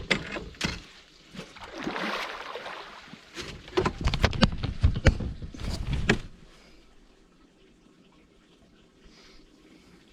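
Splashing water and sharp knocks against a boat as a big hooked blue catfish is fought at the boat's side, loudest between about four and six seconds in, then it goes quiet.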